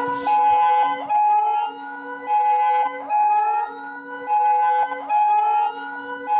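Emergency Alert System-style alarm tone: steady two-tone attention signal broken by short gaps, layered with siren-like rising sweeps that repeat about once a second and a low pulsing beep.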